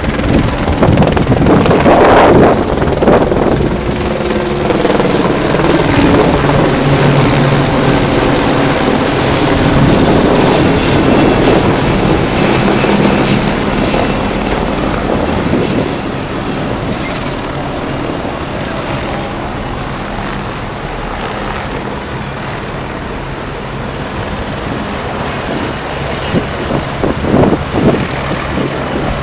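Light helicopter flying overhead, its turbine engine and rotor making a steady drone. It is louder through roughly the first ten seconds, then quieter and steady.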